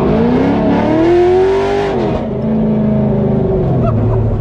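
LS1 V8 in a Nissan 240SX (S13) drift car, heard from inside the caged cabin: the engine revs up for about two seconds with a rushing hiss, drops off, holds a steady note briefly, then settles lower.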